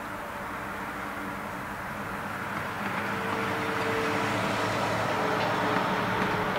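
Boeing 747-400 jet engines running at taxi power: a steady rushing hum that grows a little louder about three seconds in, with a faint whine coming and going.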